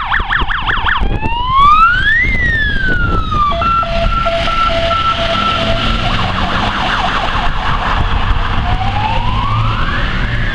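Fire engine's electronic siren cycling through its modes: a fast yelp, then a slow wail rising and falling, then a pulsing tone, then the yelp and a rising wail again. The truck's engine runs underneath.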